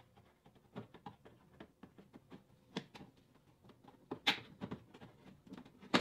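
Plastic push-pin trim clips being pried out of a Chevy Cruze trunk lid liner with a trim removal tool. The sound is a run of irregular small clicks and scrapes, with a louder snap a little after four seconds in.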